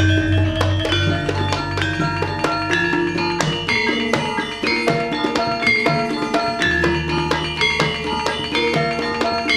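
Javanese gamelan music: bronze metallophones playing a busy pattern of struck, ringing notes over hand drums. A deep gong is ringing with a slow waver at the start, and another deep gong stroke comes in about seven seconds in.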